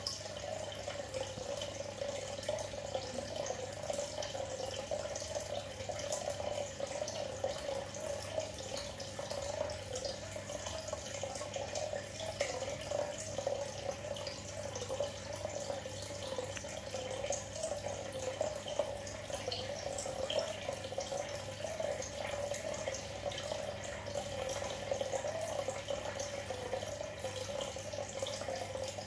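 Aquarium aeration bubbling steadily, with small bubbles trickling and ticking at the water surface over a low steady hum.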